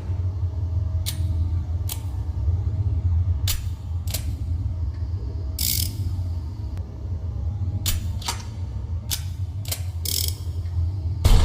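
Revolver mechanism being worked: a series of sharp metallic clicks and short rasps, such as the hammer cocking and the cylinder turning, spaced irregularly over a steady low hum. A louder noise comes right at the end.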